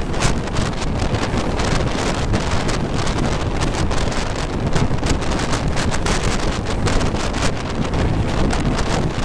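Freight wagons rushing past at close range: a continuous rumble and rattle of wheels on rail, broken by many short sharp clacks, with heavy wind buffeting the microphone.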